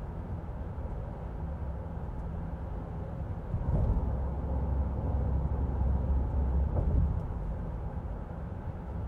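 Tyre and road noise heard inside the cabin of a 2023 Honda Ridgeline pickup at about 55 mph: a steady low rumble. About three and a half seconds in it grows louder for some three seconds while the truck crosses a bridge, with a short bump as that stretch begins and another as it ends.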